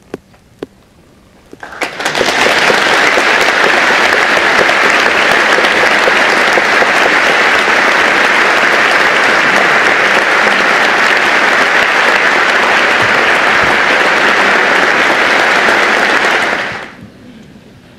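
Concert audience applauding: after a short lull with a few small clicks, a full round of clapping starts about two seconds in, holds steady and loud, and dies away quickly near the end.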